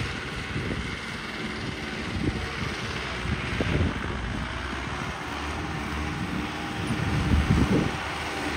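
New Holland 5630 tractor's diesel engine running steadily.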